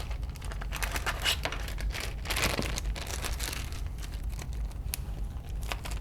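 Plastic parts bag crinkling as it is opened and its contents handled, busiest in the first few seconds and then trailing off, with a couple of light ticks near the end.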